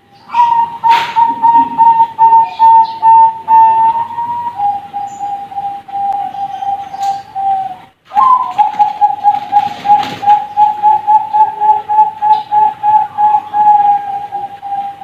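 Young Bangkok-line zebra doves (perkutut piyik) cooing: long strings of quick, evenly repeated notes at a steady pitch, about four notes a second. A sudden break about eight seconds in splits it into two phrases.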